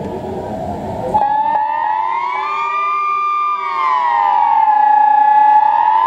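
Swiss civil-defence sirens sounding the 'general alarm' test signal: a slowly rising and falling wail, with several sirens overlapping at slightly different pitches. The wail cuts in abruptly about a second in, replacing a stretch of general background noise, and grows louder.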